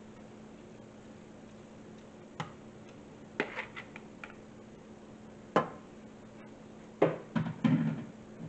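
A cooking utensil clacking against a skillet and dish as food is added and tossed. There are scattered sharp knocks, a single loud one about halfway through and a quick cluster near the end, over a steady low hum.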